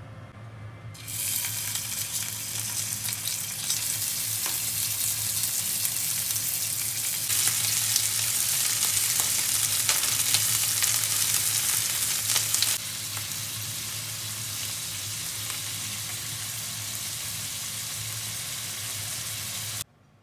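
Beef skirt steak sizzling in hot oil in a nonstick frying pan, with the occasional tap of chopsticks turning the pieces. The sizzle starts about a second in, is loudest in the middle, and cuts off suddenly near the end.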